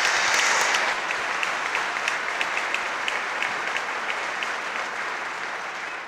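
Large indoor audience applauding, a dense patter of many hands clapping. Loudest in the first second, then steadier and slowly tapering off toward the end.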